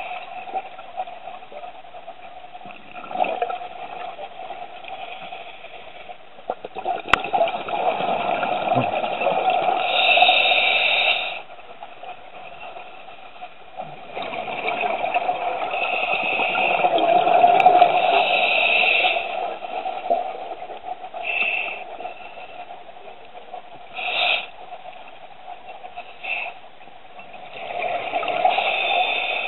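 Scuba diver's regulator breathing underwater: long stretches of exhaled bubbles, each a few seconds long, three times, with quieter inhalation in between.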